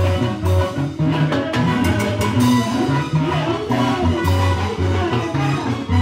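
Live band playing upbeat Latin dance music: an electronic keyboard lead over a bouncing bass line and a drum kit with cymbals keeping a steady beat.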